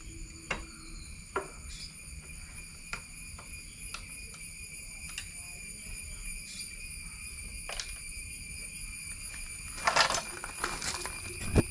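Light, scattered clicks and taps from hand work on a Lambretta scooter's engine and wiring, over a steady high insect drone. About ten seconds in comes a burst of rustling and shuffling, then one sharp knock near the end.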